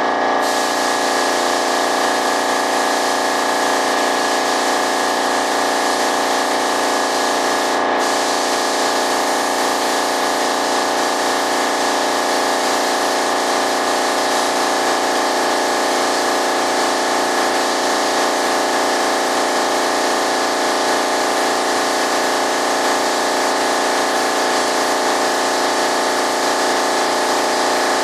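Air compressor running steadily close by, with the hiss of a spray gun laying down primer; the hiss breaks off briefly about eight seconds in.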